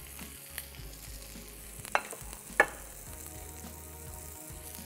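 Faint steady sizzle of oil frying, with two sharp clicks about two seconds in and half a second apart.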